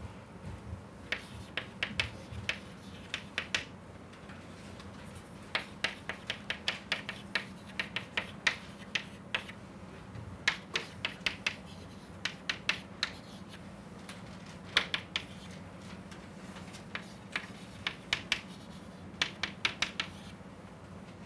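Chalk writing on a chalkboard: quick runs of sharp taps and short scratches as each symbol is written, coming in bursts with brief pauses between them.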